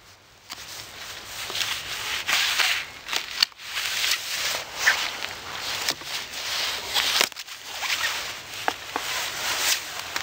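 Dry canes of a Bonica shrub rose rustling and crackling as old stems are handled and pulled out during pruning, with a few sharp snips of hand pruning shears.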